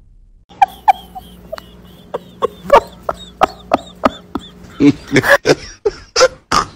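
Cats chattering at a bird: a run of short clicking, clucking chirps, about three a second, getting louder and more crowded near the end.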